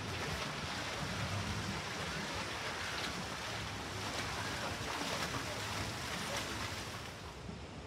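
Steady outdoor water noise: water lapping on a lake with wind on the microphone, dropping a little near the end.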